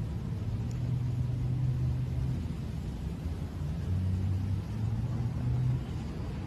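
Steady low background rumble with a faint hiss, and no distinct event.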